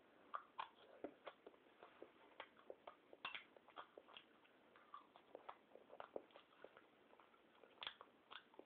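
Faint, irregular small clicks and smacks, a few a second, of a child eating with a spoon from a plate.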